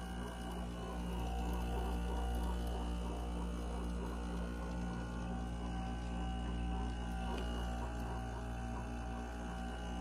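2019 Frigidaire window heat pump running its defrost cycle: a steady compressor hum made of several held tones, with a fine crackling underneath as frost melts off the coil and steams.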